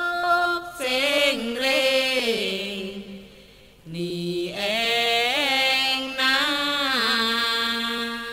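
A single voice chanting a melodic Thai Buddhist chant in long held, wavering notes. It sings two phrases, with a short pause about three seconds in.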